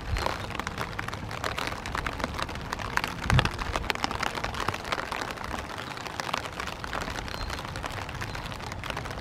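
Steady rain, with many close drops ticking. A single dull thump comes about three seconds in.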